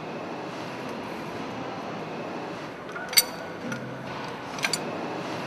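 Loose steel engine parts clinking against each other with a short metallic ring: one sharp clink about three seconds in and a quick pair of clinks near the end, over a steady background hiss.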